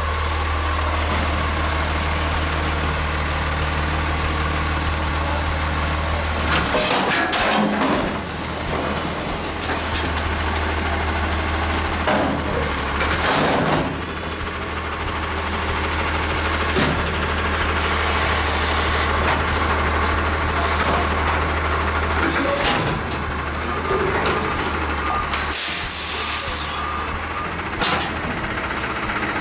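Heil front-loading garbage truck running with a steady low engine hum while its hydraulic forks lift a dumpster over the cab, empty it and lower it back down. Metal clanks and knocks from the bin and arms come throughout, with a couple of bursts of hiss.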